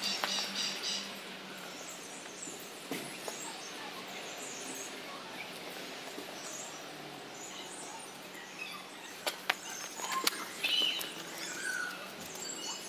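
Outdoor ambience of small birds chirping here and there over a faint steady background, with a few sharp clicks late on.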